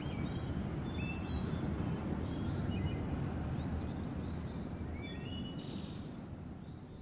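Several birds chirping and calling in short repeated notes over a steady low background rush, fading out near the end.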